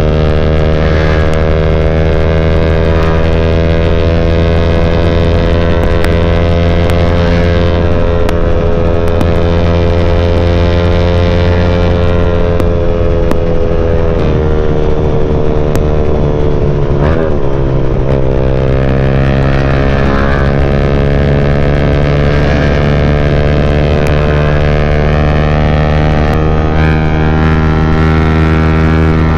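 Yamaha Y15ZR single-cylinder four-stroke engine through a CJ Ipoh aftermarket exhaust, running at steady cruise while the bike is ridden. The note drifts slowly up and down, drops a step about halfway through, then dips briefly and climbs again a few seconds later.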